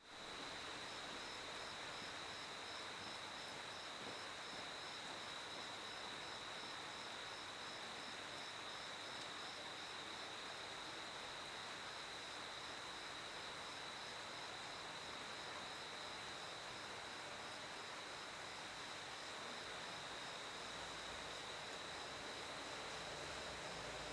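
Crickets chirping: one continuous high trill holds steady, while another chirps in short regular pulses, about two a second, at a slightly higher pitch, over a soft hiss.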